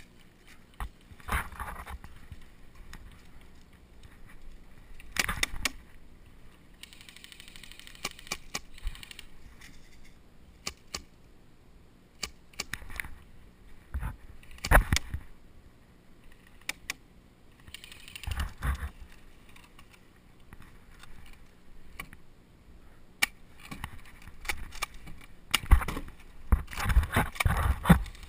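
Airsoft gear being handled and a player shifting through dry grass: scattered clicks, knocks and rustling. A few sharp airsoft pistol shots come around the middle, with a dense run of clicks and rustle near the end.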